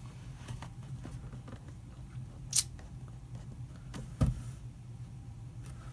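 Quiet room with a steady low hum, broken by a short sharp click about two and a half seconds in and a duller knock about four seconds in: small handling noises from someone touching and moving a tablet computer.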